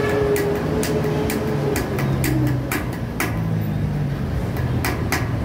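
Light hammer taps on a metal bearing drift set in a Paps Pro 1 bicycle hub, working a sealed bearing during a bearing replacement. About two taps a second, with a pause a little after the middle, over a steady low rumble.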